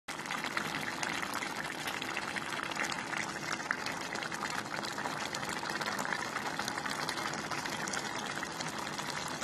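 Pot of beef picadillo stew simmering: a steady bubbling with many small pops.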